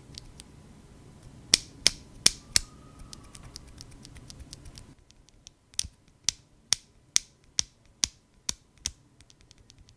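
Gateron Yellow linear switches (milky tops, black bottoms) pressed and clacking, first unlubed, then after a break lubed with Krytox 205g0. The first set gives a few sharp clacks over a faint background hum. The lubed set gives about three evenly spaced clacks a second in a quieter background, less scratchy than the unlubed switches.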